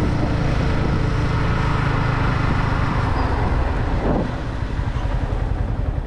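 Yamaha motorcycle engine running while riding, with steady wind rush over the microphone; the sound drops a little about four seconds in.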